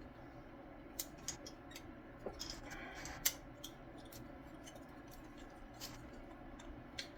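Scattered small plastic clicks and taps of headlight housing parts being handled and pried apart at their clips, with the sharpest click about three seconds in.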